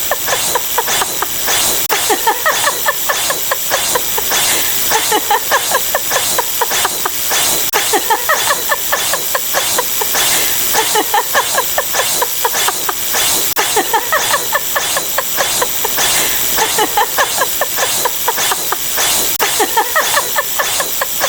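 A dense, rapid mix of overlapping sound-effect clips fired one after another as a counter ticks up. Short clicks and falling chirps repeat several times a second without pause.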